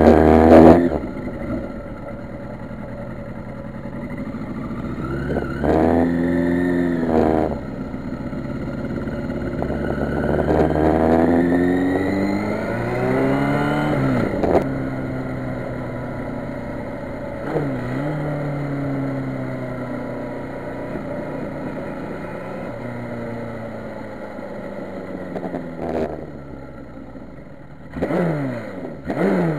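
Motorcycle engine riding through the gears: the pitch climbs as it accelerates and drops at each shift, with steadier cruising stretches between. There is a sharp click about 26 seconds in.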